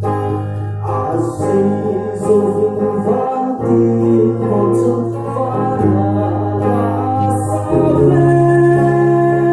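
Live song: a man singing into a microphone with electric guitar accompaniment, over long held bass notes that change every two seconds or so.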